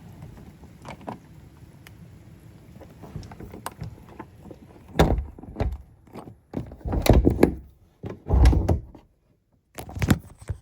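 A low rumble, then a run of loud, sharp thumps and knocks from about halfway in, the heaviest near the end.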